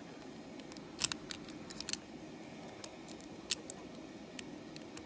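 Small hard plastic clicks and rattles as a LEGO train motor is handled and its wheels are set in: a cluster of clicks about a second in, a few more just before two seconds, and one sharp click about three and a half seconds in.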